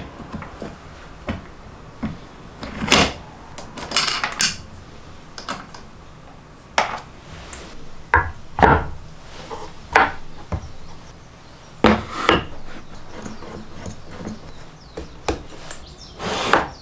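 Wooden push block being handled and fitted together on a table-saw workbench: irregular wooden knocks and clicks, with a longer slide near the end as it is pushed along the aluminium fence.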